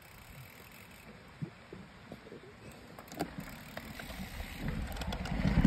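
Mountain bikes setting off on a dirt trail: a few scattered clicks and crunches at first. Then, from about four seconds in, a rumble of tyres rolling over dirt and wind on the microphone builds up as the bikes get moving.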